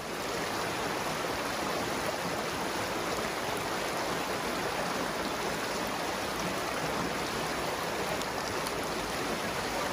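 A small woodland brook running over a riffle: a steady, even rush of water.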